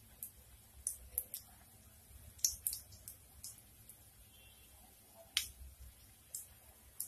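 Hot oil sputtering around a kofta ball deep-frying: a dozen or so faint, sharp pops and crackles at irregular intervals.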